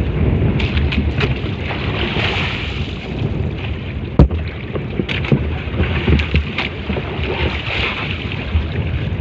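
Wind buffeting the microphone aboard a small fishing boat at sea, a steady rough rush with scattered knocks and one sharp loud knock about four seconds in.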